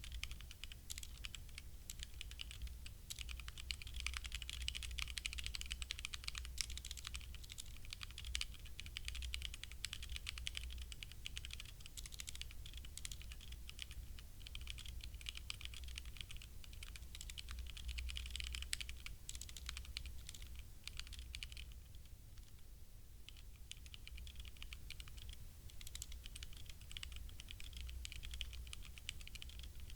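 Continuous fast typing on a HyperX Alloy Origins Core mechanical keyboard with HyperX Red linear switches: a dense stream of key clacks that eases briefly about two-thirds of the way through.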